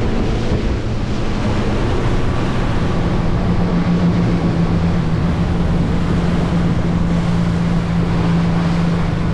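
Motorboat running at cruising speed: a steady engine drone under the rush of water along the hull and spray, with wind buffeting the microphone. The engine tone strengthens about three seconds in.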